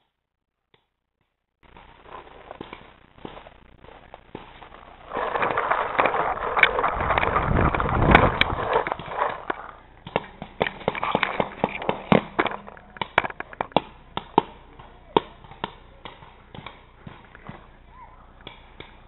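Paintball markers firing in sharp, irregular pops, with paintballs smacking into tyres and brush. A louder stretch of dense rough noise sits from about five to nine seconds in, and the pops come thick and fast after it.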